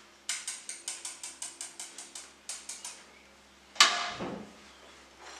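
A metal whisk rapping quickly against a small pan, about five sharp strikes a second for nearly three seconds, then one loud metallic clank with a short ring near the end.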